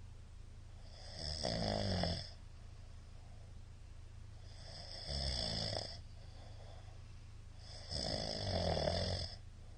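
A middle-aged man snoring in his sleep: three loud snores, about three to four seconds apart, over a steady low background hum.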